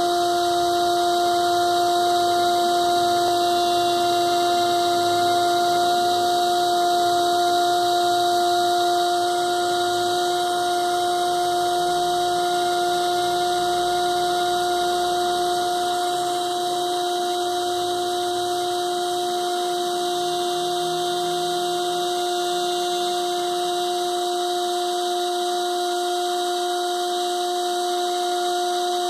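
Small brushed DC motor driving a mini plastic propeller at steady speed: a constant, even-pitched whine that neither rises nor falls.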